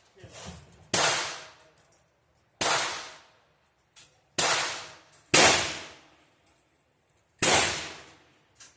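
Five gunshots at a shooting range, spaced irregularly a second or two apart, each a sharp crack that dies away over about half a second.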